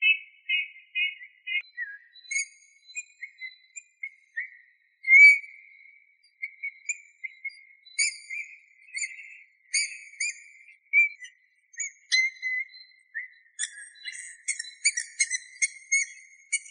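Eurasian bullfinch singing: a long string of short whistled and piping notes, most at one middle pitch. Higher, thinner notes are scattered through and crowd together near the end.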